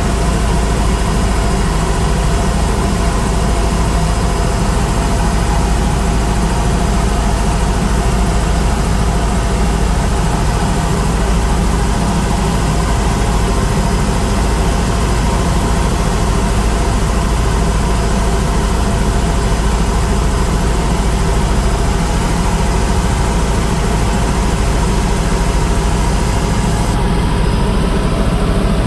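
Helicopter in flight: steady, loud engine and rotor noise with a deep low drone that does not change.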